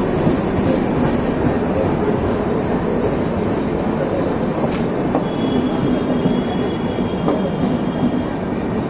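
Indian Railways LHB passenger coaches passing at speed, a steady heavy rumble of steel wheels on the rails with some clickety-clack. A faint high-pitched wheel squeal comes in around the middle and again later.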